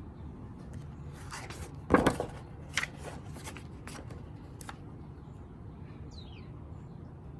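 Paper rustling and a few sharp clicks as a picture book is handled and its pages turned, loudest about two seconds in.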